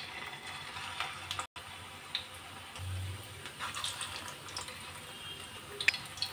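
Potato kofta balls deep-frying in a kadhai of hot oil: a faint, steady sizzle with a few light ticks and crackles scattered through it.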